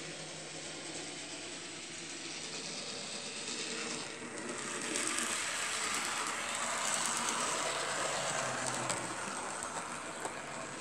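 Model railway diesel locomotive running along the track, its small motor and gearing whirring steadily with a few clicks from the wheels on the rails; it grows louder about halfway through.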